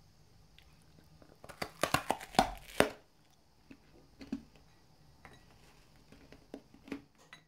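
Crisp puffed-rice and jaggery ball (murir moa) crackling and crunching in the hand: a dense burst of sharp cracks about one and a half to three seconds in, then scattered small crackles. The crunch is the sign that the puffed rice is very crisp.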